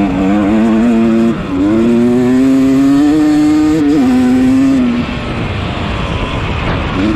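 Yamaha 250 dirt bike engine running hard under throttle. The revs dip sharply about a second and a half in and drop again around four seconds. The engine goes quiet for about two seconds, off the throttle, then revs up again near the end.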